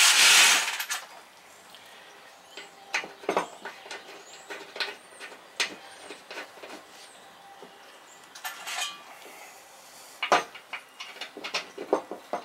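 Scattered metal clicks and knocks of a mower-deck spindle housing being lined up against the steel deck and its self-tapping bolts being handled. A loud, brief scraping rush comes right at the start, and one sharp knock stands out about ten seconds in.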